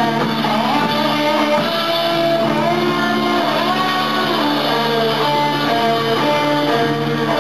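Live rock band playing: electric guitars over a drum kit, loud and continuous, with notes bending up and down in pitch.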